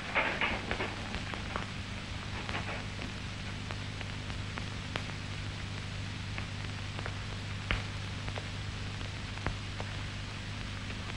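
Steady hiss and low hum of an old film soundtrack, with scattered faint crackles and clicks. A short burst of noise comes right at the start.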